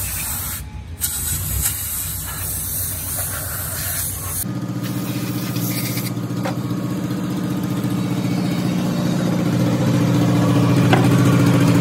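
A pressurised spray wand hissing as it blasts a diesel engine piston and connecting rod clean, with a short break about a second in. At about four and a half seconds the hiss stops and a steady low machine hum takes over, growing slightly louder toward the end.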